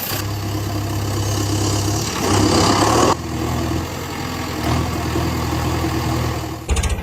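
A vehicle engine running at a steady idle. The sound changes abruptly about three seconds in and again near the end.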